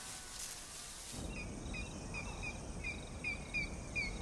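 Savanna ambience: from about a second in, a bird calls in short, falling notes repeated two or three times a second, over a low steady outdoor rumble.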